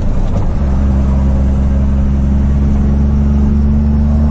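A Ford truck's diesel engine heard from inside the cab while driving, pulling steadily. Under a second in its note changes, then holds steady again.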